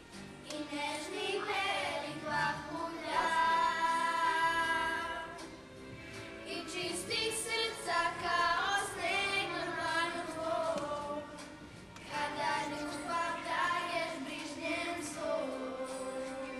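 A group of children singing a song together, several voices in unison holding long notes with short breaks between phrases.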